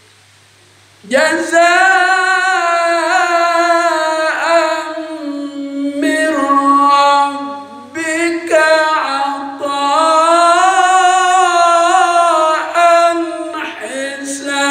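A man reciting the Quran in Arabic in a melodic, chanted style, holding long ornamented notes that glide up and down, with short pauses for breath. Only a low hum is heard for the first second before the voice comes in.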